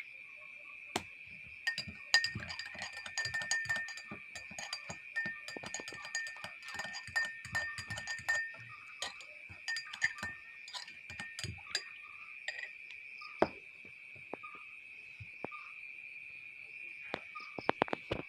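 Steady high-pitched chirring of insects, with many irregular clicks and knocks over it, thickest for the first twelve seconds or so and a few more near the end.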